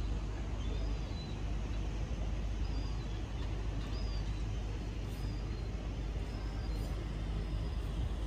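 Outdoor harbourside ambience: a steady low rumble of wind and distant traffic, with faint short high chirps now and then.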